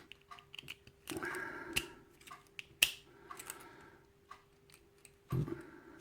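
Small metallic clicks, taps and brief scrapes of a Kwikset lock cylinder's parts being handled during disassembly, with one sharper click about three seconds in.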